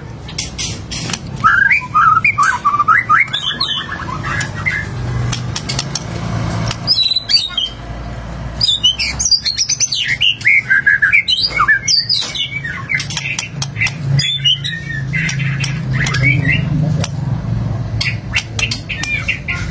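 White-rumped shama (murai batu) singing in bursts of rapid, varied whistles, chirps and harsh notes, a full learned song of mimicked phrases. Short pauses fall between the bursts, over a low steady hum.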